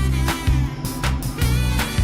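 Background music: an upbeat funky instrumental with a steady beat and a bass line.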